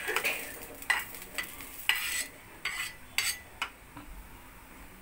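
Fried coconut pieces being scraped out of a small aluminium kadai into a steel bowl, the utensil clinking sharply against the metal about six times, over a light sizzle of hot ghee that fades a little after two seconds in.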